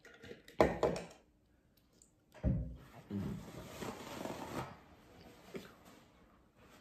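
Close-miked sipping through a straw from a plastic tumbler, then a thunk as the tumbler is set down on the counter about two and a half seconds in, followed by rustling.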